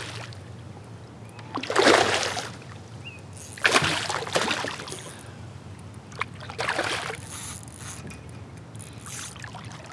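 Hooked smallmouth bass thrashing at the surface beside a kayak, in about four bursts of splashing, the loudest about two seconds in.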